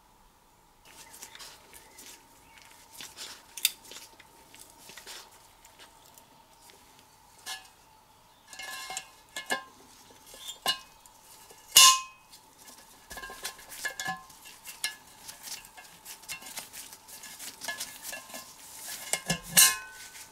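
Metal clinks and clicks of a valve spring compressor, valve springs and valves being worked into the valve chamber of a Briggs & Stratton model 11 engine block. The light ringing clinks come irregularly, with a louder one about twelve seconds in and another near the end.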